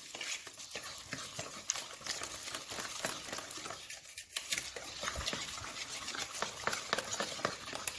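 A hand mixing wet, sticky dough of flour, milk, egg and oil in a plastic bowl: irregular soft squelching and patting as the fingers work the flour into the liquid.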